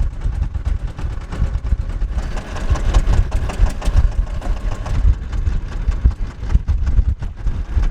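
A small fishing boat's engine running with a loud, pulsing low rumble.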